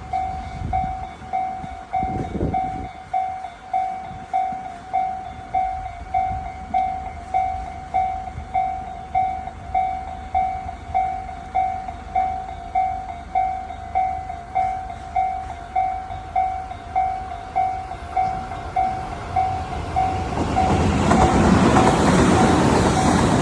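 Japanese level-crossing warning bell ringing steadily at about one and a half strikes a second. Near the end a train arrives and passes, its rumble and wheel noise swelling to the loudest part.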